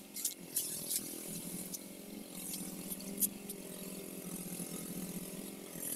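A small engine running steadily at an even pitch, with scattered sharp crackles over it.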